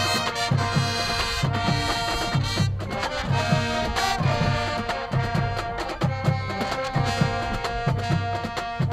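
High school marching band playing its field show: wind instruments hold chords over a steady run of low drum hits from the drumline.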